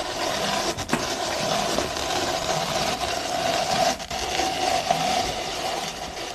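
Electric kitchen grinder motor running steadily while shredding carrots, with two brief dips about a second and four seconds in.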